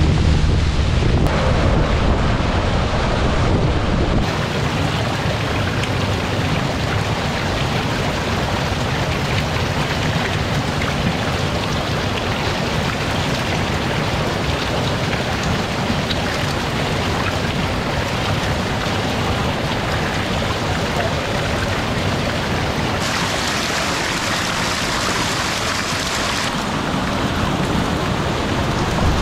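Heavy water gushing and splashing: a steady rush of water pouring from a large outlet pipe and over a sluice into concrete eel tanks.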